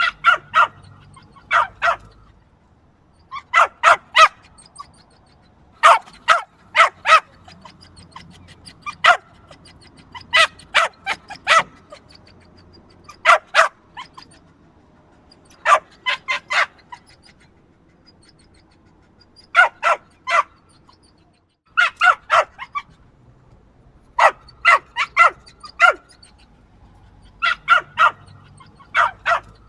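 Small dog yapping: quick bursts of two to four sharp, high-pitched barks, a new burst every two seconds or so.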